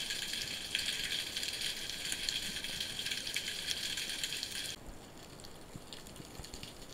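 Underwater crackling: a dense, even fizz of tiny clicks that cuts off abruptly about five seconds in, leaving a quieter background with scattered clicks.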